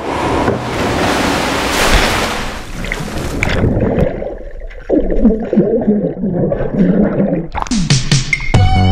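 A person plunging into a swimming pool: a big splash and rushing water, then muffled underwater bubbling from about three and a half seconds in, and a splash as he breaks the surface near the end, when electronic music starts.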